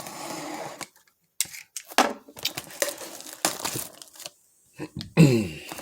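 Plastic shrink wrap and cardboard of a trading-card box crinkling and tearing as the box is ripped open, in irregular rips and crackles.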